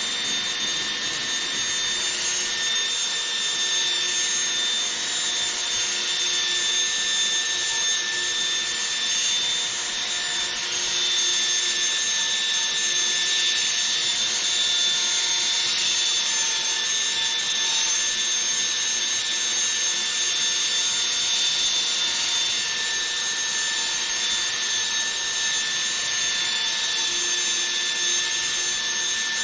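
Cordless drill spinning a polishing pad against a plastic headlight lens: a steady high motor whine over a continuous rubbing hiss.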